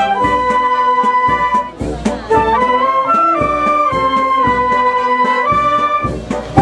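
Processional brass band playing a slow march: a held brass melody that moves in steps over a steady low beat, pausing briefly between phrases.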